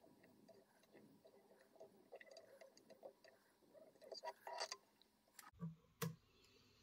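Very quiet small ticks and rustles of thread working over a wire whip-finisher tool as a whip finish is tied at the hook eye, then a couple of sharp clicks near the end as scissors snip the thread.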